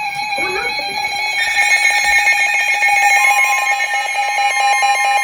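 Weather radio emergency alert tones: several steady high-pitched tones sound together and grow louder, with a further tone joining a little after three seconds in. They mark the start of a new warning broadcast.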